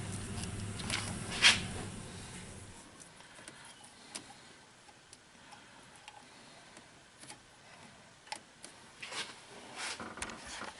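Scattered light clicks and taps of tools and small parts being handled during distributor work, the sharpest about a second and a half in, over a steady low hum that stops about two and a half seconds in.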